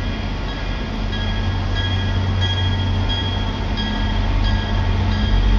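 MBTA commuter rail diesel locomotive approaching, its low engine drone growing gradually louder. A warning bell rings in steady strokes a little under twice a second.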